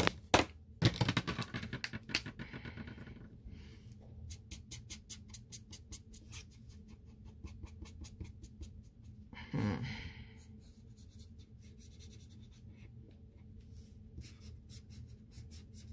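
A felt-tip marker's nib tapped and scratched over and over against the painting surface, in quick light ticks. A few sharp clicks come at the start, and a short breathy sound comes about ten seconds in.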